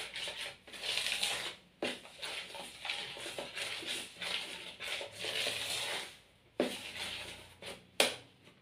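Chapati flour and margarine being mixed in a plastic bowl: gritty rubbing and scraping in uneven bursts. There are two sharp knocks near the end.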